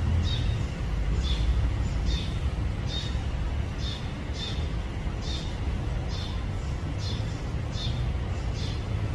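Short high chirps from a small animal, repeating steadily about once every three-quarters of a second over a steady low rumble.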